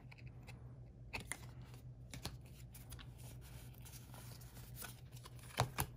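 Magic: The Gathering cards being handled and sorted in the hands: faint sliding rustle with a few light clicks scattered through, over a steady low hum.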